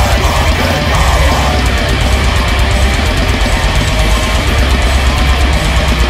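Blackened metalcore: distorted electric guitars, bass and programmed drums playing a loud, dense, unbroken wall of sound.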